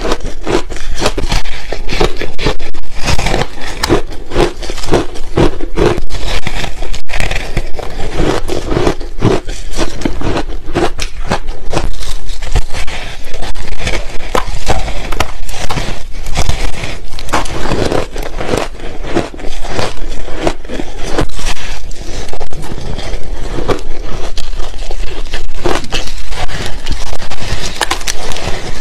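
Loud crunching and crackling of crumbly frozen frost ice being bitten and chewed, a dense, continuous run of crunches with no pause.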